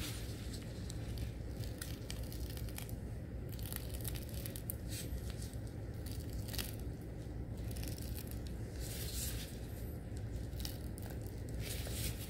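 Piping bag crinkling and squishing as yolk filling is squeezed through its metal tip into egg-white halves, in short irregular rustles over a steady low hum.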